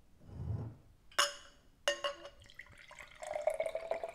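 Fizzy jun poured from a swing-top glass bottle into a glass champagne flute. Two sharp glass clinks come about a second and two seconds in. Then, from about halfway, the liquid splashes into the flute with a steady ringing filling tone.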